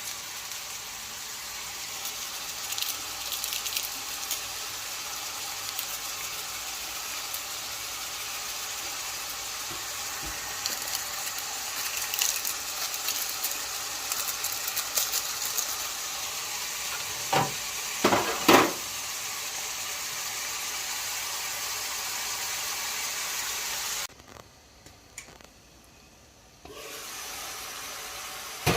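Food frying and sizzling in hot oil in a pan: a steady hiss with scattered crackles. A spoon knocks against the pot three times a little past the middle, and the sizzle drops out for a couple of seconds near the end.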